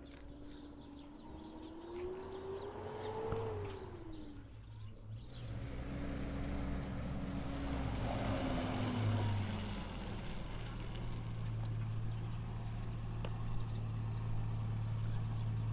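Pickup truck engine running as it drives on a gravel road: the engine note rises and then drops in the first few seconds, rises briefly again with crunching tyres, and settles into a steady low idle about ten seconds in.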